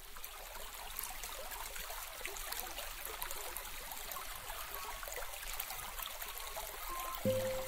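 A steady crackling hiss that fades in at the start. Near the end a sustained low musical note comes in.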